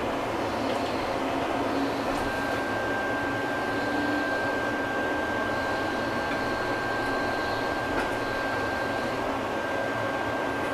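Škoda ForCity Smart Artic tram running along its track, heard from inside at the front: a steady hiss and rumble of running noise, joined about two seconds in by a steady high whine that holds on. A light click about eight seconds in.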